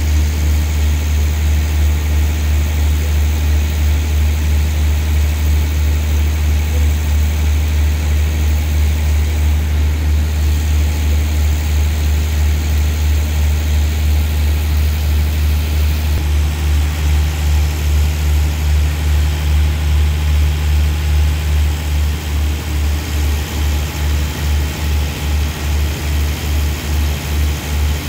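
A stationary diesel passenger train idling with a steady low hum. In the last several seconds the hum takes on a regular throb of about three beats a second.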